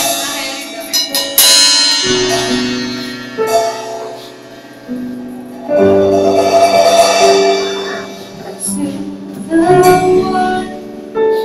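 A live worship band playing a song's introduction: held chords that change every second or two, with scattered sharp percussion hits, and a woman singing into a microphone over them.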